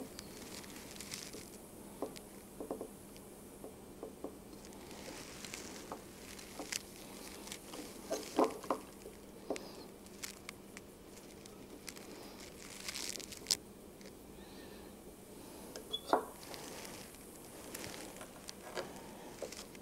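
Scattered light clicks, taps and scrapes of a hand centre punch being set and pressed against an aluminium T-track to mark screw-hole centres, over a faint steady hum. A few sharper clicks stand out about halfway through and near the end.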